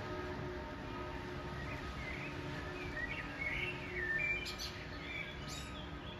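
A bird chirping and twittering: a run of short rising and falling calls through the middle, ending in a couple of sharp high chirps, over a steady low hum of background city noise.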